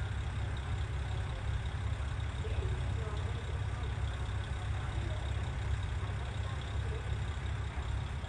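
KiHa 40 diesel railcar's engine idling while the railcar stands at the platform: a steady low rumble.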